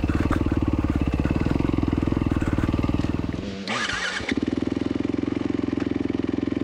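Single-cylinder four-stroke engine of a Yamaha WR450F dirt bike running at low revs with an even pulse, broken briefly about four seconds in, then idling steadily.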